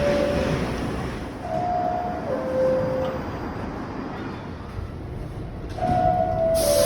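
Subway car door chime, a descending two-note ding-dong, heard in full about a second and a half in and again starting near the end, with the last note of an earlier chime at the very start. Steady rumble of the train underneath. The chime warns that the doors are about to close.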